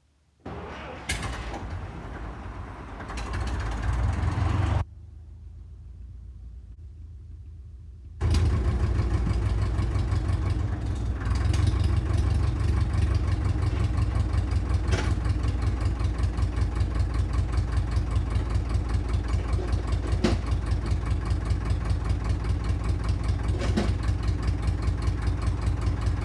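International Harvester TD9 crawler's four-cylinder gas-start diesel engine being started on gasoline: it is cranked and catches about half a second in, goes quieter for a few seconds, then from about eight seconds in runs steadily with an even beat. It starts readily now that the stale fuel has been replaced with fresh gasoline.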